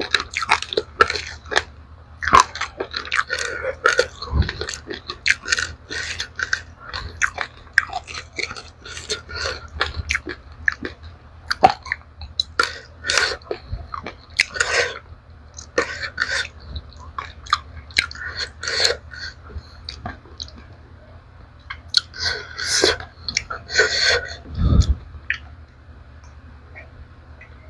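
Close-up crunchy chewing of dry-roasted raw rice grains: a fast, irregular run of sharp crunches that grows louder just before the end, then trails off.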